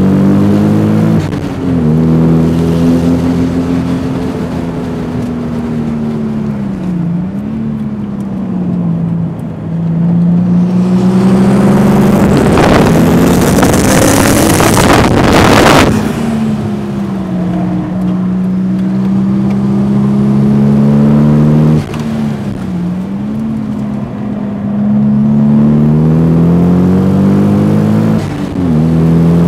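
Turbocharged Toyota Supra inline-six heard from inside the cabin on track, revving hard and easing off, its pitch dropping sharply at several gear changes. In the middle, for about five seconds, a loud rushing noise swells over the engine and cuts off.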